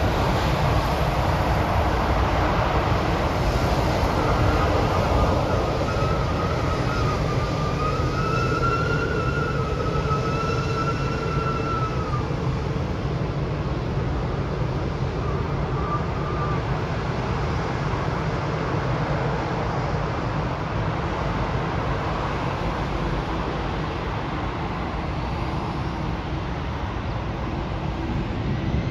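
Embraer regional jet's two GE CF34 turbofans running at taxi power: a steady low rumble with a wavering whine between about 4 and 12 seconds in.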